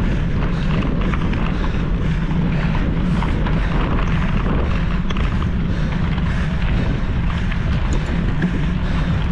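Wind buffeting the microphone of a camera on a moving mountain bike, a steady low rumble, mixed with the continuous rattle and clatter of the bike over rough trail.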